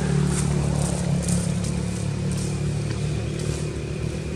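A motor vehicle engine running steadily, a low even drone.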